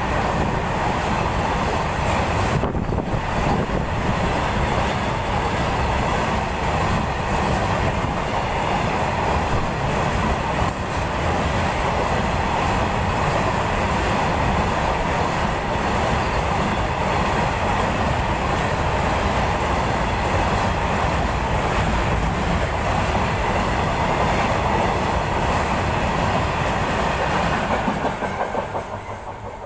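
Freight train's open coal wagons rolling past close by, with a steady noise of steel wheels on rails. The sound dies away about 28 seconds in as the end of the train goes by.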